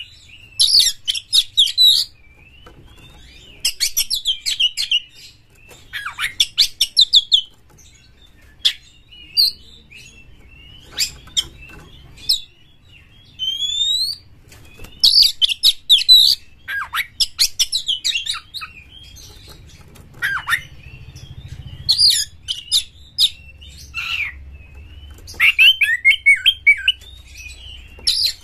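Oriental magpie-robin singing in short bursts: phrases of fast, repeated high notes about a second long, separated by pauses, with a few single notes rising in pitch.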